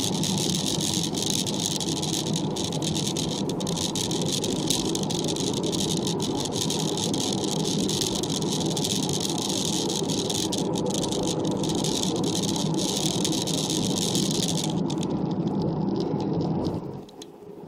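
Steady engine and road noise heard from inside the cabin of a moving vehicle. A high hiss stops about fifteen seconds in, and the overall level drops sharply shortly before the end as the vehicle nears a roundabout.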